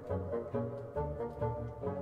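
Quiet background music with sustained notes that change every half second or so over a low bass line.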